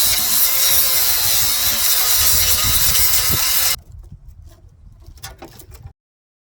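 A power saw cutting through car-body sheet metal, its pitch wavering with the load. It stops abruptly a little under four seconds in, followed by a few faint clicks and knocks.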